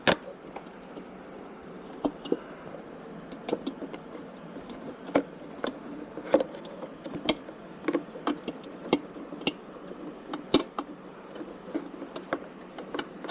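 Irregular light clicks and taps of hands handling small plastic parts and wiring connectors, a few sharper clicks among them, over a steady low hiss.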